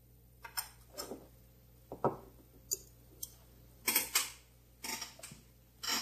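Small metal parts of a Ronson gas lighter clicking and clinking as they are handled and set down on a wooden tabletop: about a dozen irregular sharp clicks and taps, the loudest about two and four seconds in.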